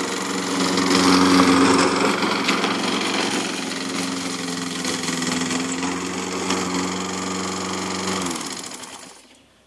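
Petrol walk-behind lawn mower engine running steadily as it is pushed across the grass, then shut off about eight seconds in, its pitch dropping as it runs down to a stop.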